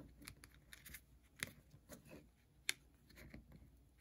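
Faint handling of trading cards: soft rustles and light clicks as cards are flipped and slid over one another in the hand, with a few sharper ticks.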